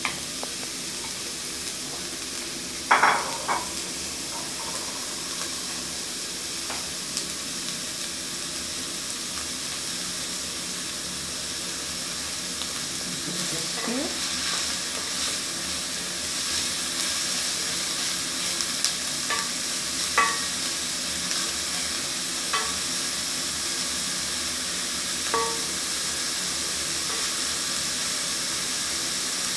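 Chopped onions sizzling as they fry in hot oil in a stainless steel pot while being stirred with a wooden spoon. A few sharp knocks of the spoon stand out, the loudest about three seconds in.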